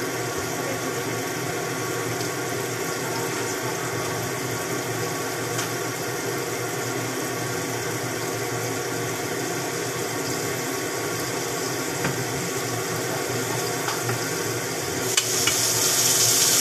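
Pan of pansit cooking under a glass lid on the stove: a steady hiss with a hum under it. About 15 seconds in, a click as the lid is lifted, and a louder, brighter sizzling hiss comes out.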